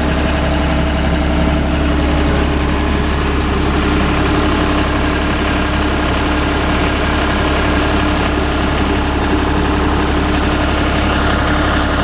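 2002 John Deere 260 skid steer's diesel engine running steadily at an even, unchanging speed.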